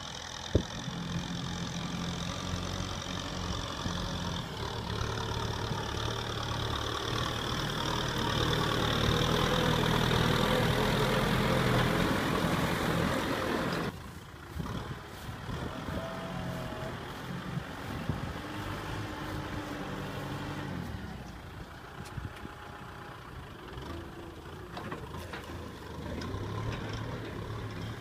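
Kubota M6040SU tractor's diesel engine running steadily under load as it pulls a disc plough through dry soil. It grows louder for a few seconds, then drops abruptly about halfway through and carries on at a lower level.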